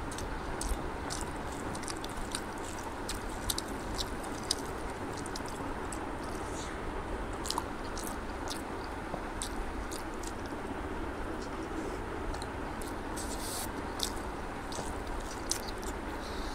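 Close-miked chewing and wet mouth smacking of rice and egg curry eaten by hand, with many short sharp clicks, over a steady background hiss.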